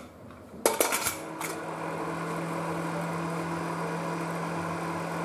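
A brief metallic clatter of cookware, then an induction cooktop running under a steel pressure cooker: a steady low hum with fan hiss, starting about a second in.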